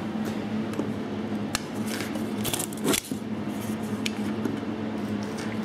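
Electric fan running steadily with an even hum. A few light clicks and knocks come about one and a half, three and four seconds in, as things are handled and set down on a wooden workbench.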